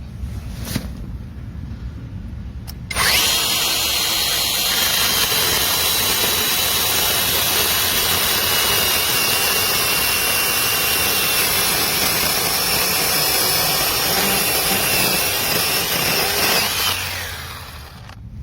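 Battery-powered brushless mini chainsaw starting abruptly about three seconds in and running at full speed with a high, steady motor whine and chain noise. It winds down with a falling pitch near the end.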